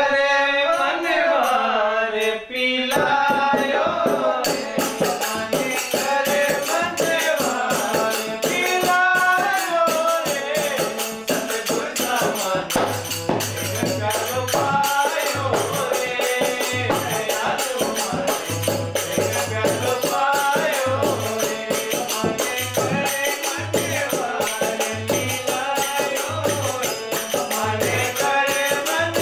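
Men singing a Hindi devotional bhajan together to a harmonium, with small hand cymbals (manjira) clashing in a fast, steady rhythm. The cymbals come in about three seconds in, and the low beats of a dholak drum join around the middle.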